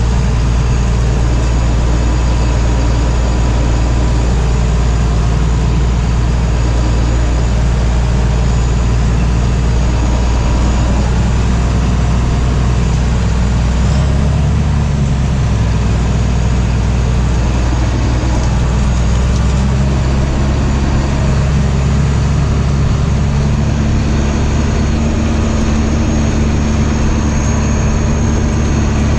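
A John Deere harvest machine's heavy engine running loud and steady under load, its low note shifting about halfway through and again a few seconds later.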